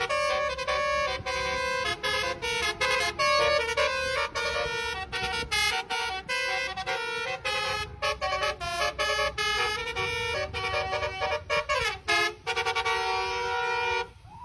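Indonesian bus 'telolet' Basuri horn playing a melody of quick stepped notes, with a falling slide about twelve seconds in, then cutting off just before the end.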